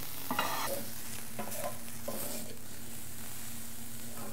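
Shredded green cabbage frying steadily in butter in a cast-iron skillet, nearly done. A spatula stirs and scrapes it across the pan in a few strokes.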